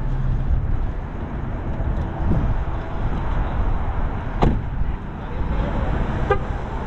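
Steady road-vehicle noise, a low rumble and hiss, with a brief sharp knock about four and a half seconds in.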